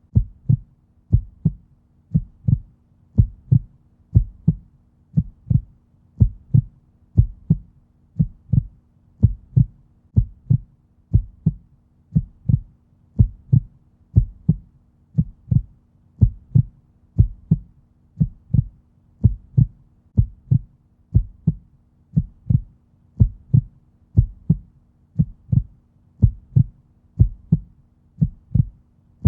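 Heartbeat, a steady resting rhythm of low lub-dub double thumps at about one beat a second, over a faint steady hum.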